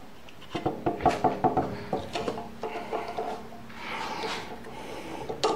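Metal clicks and clinks as a chuck key is fitted into a lathe tailstock drill chuck and turned by hand to drive a tap, with a short rubbing sound about four seconds in.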